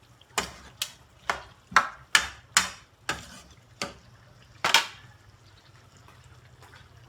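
A cooking utensil scraping and knocking against a pan as chicken is stirred: about nine quick strokes, roughly two a second, over the first five seconds, then they stop.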